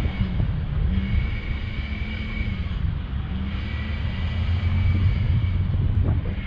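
A motor yacht's engines running at low revs during close-quarters manoeuvring into a berth: a steady low drone with a fainter high whine over it. The drone grows stronger about four seconds in.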